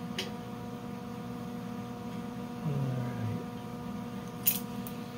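Steady electrical hum, with a few light clicks of hand tools on steel; the sharpest click comes near the end.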